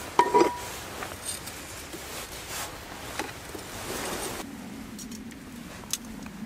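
Wood fire burning under a cast-iron skillet, crackling with scattered sharp pops. A metal clink with a short ring comes just after the start.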